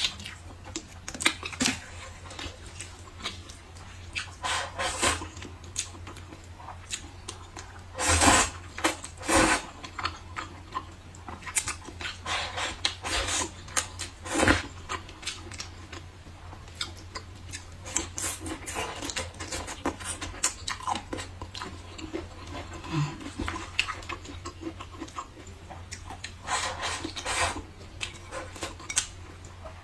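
Close-miked eating sounds: wet chewing, lip smacks and slurping of glass noodles, with many short sharp mouth clicks and a few longer slurps. A steady low hum runs underneath.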